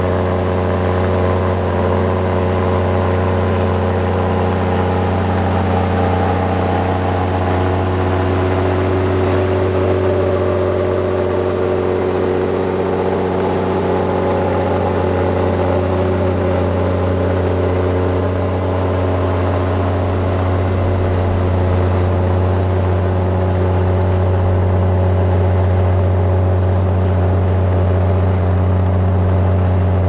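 Diesel engine of a piece of heavy earthmoving equipment running at a steady speed, a deep even drone that keeps the same pitch throughout.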